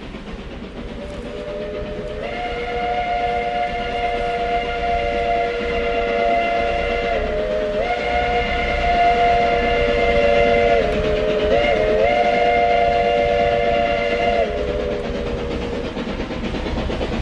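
A multi-chime steam locomotive whistle blowing one long chord blast. The chord steps up in pitch about two seconds in, dips briefly three times, then falls and fades near the end, over the low running noise of the train.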